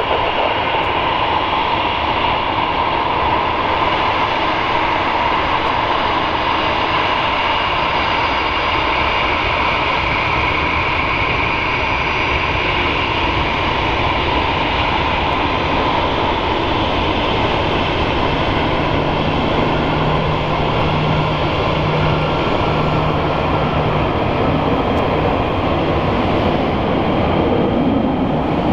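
Boeing 737-800's twin CFM56-7B turbofans at taxi power as the jet rolls past: a steady jet whine over a low rumble, the whine easing off slightly in the second half.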